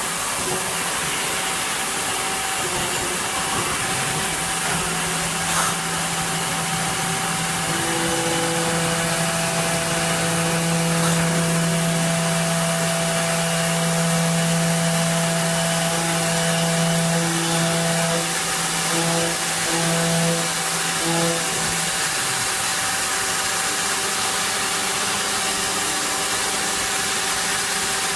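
CNC machine's axis drive motors whining as the tool travels along its axes, over a steady machine hum. The whine starts about four seconds in, breaks into short stop-start moves later on and stops about three quarters of the way through.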